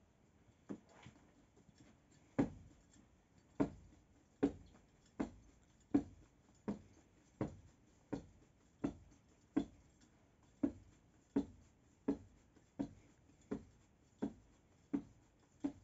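Bread dough being kneaded and rounded into balls by hand on a floured surface: a soft thud each time the dough is pressed down, about one every three-quarters of a second, beginning about two seconds in.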